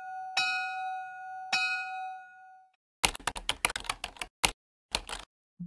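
A ringing, bell-like tone struck twice in the first two seconds, dying away. Then about two seconds of rapid computer-keyboard typing clicks in short runs with gaps.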